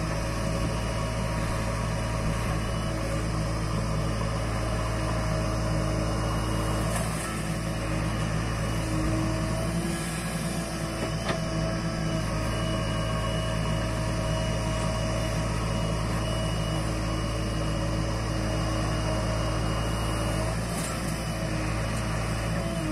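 JCB 3DX backhoe loader's diesel engine running steadily while the backhoe digs soil and loads a tipper truck. Its even hum changes briefly a few times.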